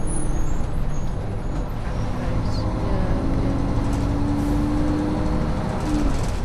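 Inside a moving bus: steady engine rumble and road noise. A humming engine note rises in the middle and stops near the end.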